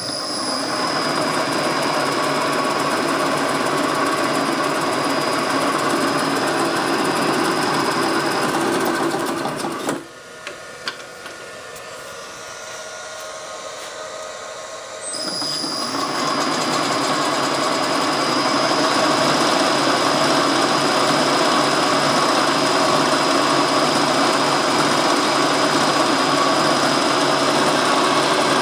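Vertical milling machine running, its motor and variable-speed vari-disc pulley drive making a rattle and squeaks with a steady high whine: the vari-discs are bent out of shape. The sound drops sharply about ten seconds in, with a couple of clicks, and comes back louder about fifteen seconds in.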